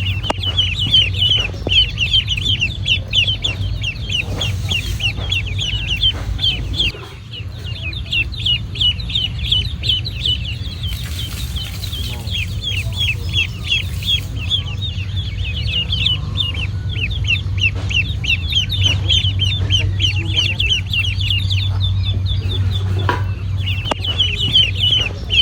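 Ducklings peeping continuously, many rapid high chirps overlapping, over a steady low hum.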